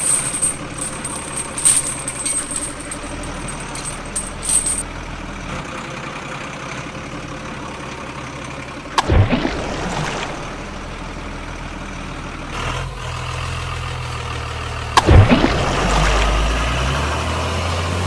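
Truck engine sound effect running steadily under toy trucks that have no engines of their own, with two sudden loud hits that sweep down in pitch about nine and fifteen seconds in.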